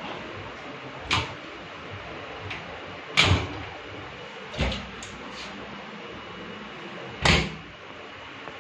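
About six sharp knocks and clacks of doors being handled, typical of aluminium-framed cupboard or sliding doors. The loudest comes about three seconds in and another near the end, over a steady background hiss.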